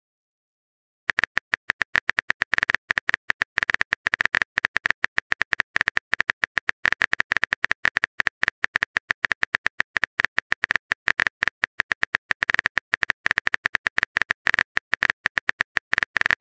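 Rapid keyboard-typing clicks from a texting-app sound effect, one click per letter as a message is typed out. They start about a second in and keep up a fast, even patter.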